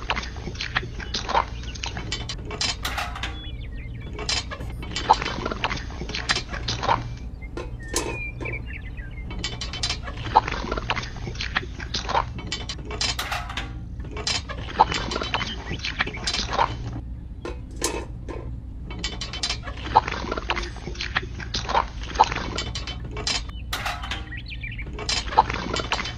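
Small motor humming steadily while small mechanical parts click and clatter at irregular intervals, some of the clicks ringing briefly.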